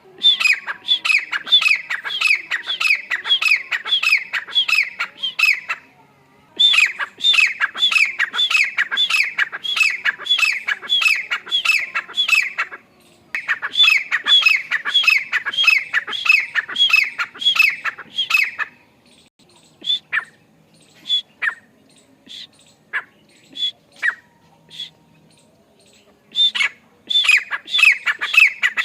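Grey francolin calling: a fast, loud run of short repeated notes, each dropping in pitch, in three long bouts. Only scattered single notes come in the middle stretch, then the rapid run starts up again near the end.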